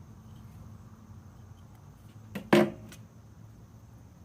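A single sharp crack with a brief ringing tail about two and a half seconds in, just after a faint click.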